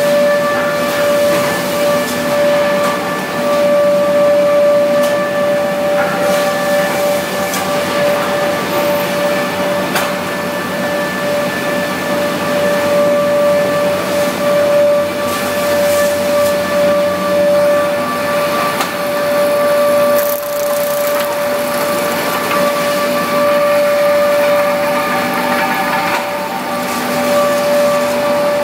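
REX woodworking planer running steadily, its motor and cutterhead giving a constant whine over a rushing hum.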